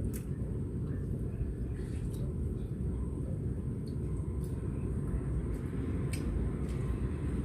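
A steady low rumble with a few faint clicks or taps about every two seconds.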